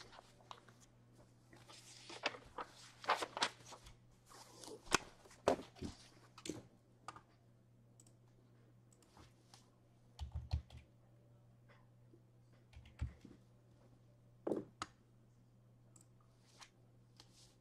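Faint, scattered clicks and rustles of small objects being handled, busiest in the first several seconds, with a few low thumps later, over a low steady hum.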